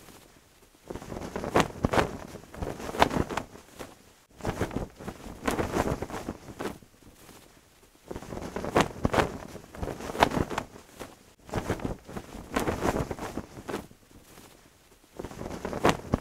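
Cloth flag flapping and snapping in the wind, in gusts of quick cracks with quieter lulls between them every few seconds.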